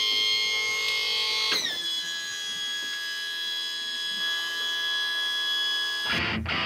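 Boat's outboard motor running with a steady high mechanical whine that drops in pitch about a second and a half in, then holds; it cuts off near the end.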